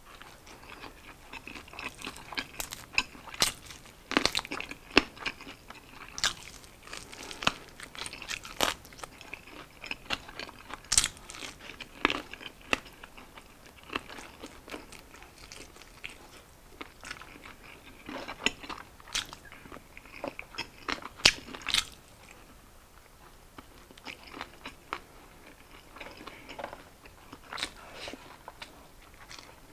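Close-miked eating: biting and chewing fried chicken wings and rice, with frequent sharp crunches and crackles. The crunching is busiest for the first two-thirds and thins out near the end.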